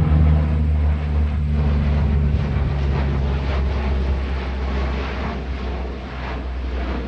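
Airplane passing overhead: a steady low engine drone with a rushing noise, slowly fading.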